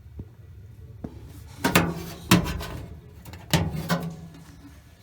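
A series of knocks and metallic clanks from handling the dryer's metal parts and panels. Two of them leave a short low ring.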